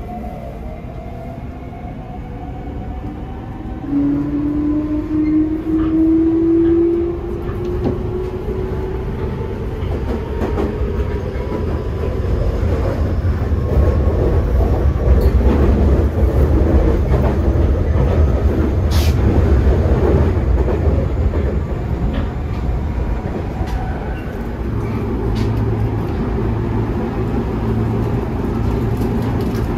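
Toei 6300-series train's Mitsubishi GTO-VVVF inverter whining as it accelerates, heard inside the car: several tones climb in pitch together over the first several seconds, the loudest one about four seconds in. Then the rumble of the wheels on the track takes over as the train runs at speed.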